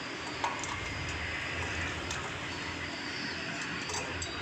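A few faint, light clicks of a wrench on the carburetor and air-filter mounting bolts of a petrol generator engine, over a steady low background noise.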